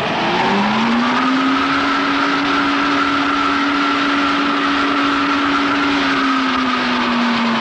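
Wind tunnel blower spinning up with a rising whine over the first second, then running at steady speed: a steady whine over the rush of the airstream at about 210 miles per hour. The pitch sags a little near the end.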